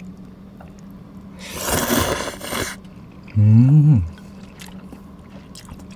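Flat glass noodles slurped in one long wet pull, followed by a short hum rising in pitch with a full mouth.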